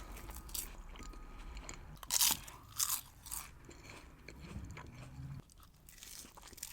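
Crispy fried rice paper roll with California roll filling being bitten and chewed close to the microphone: sharp crunches, the loudest just after two seconds and again near three seconds, with softer chewing crunches between.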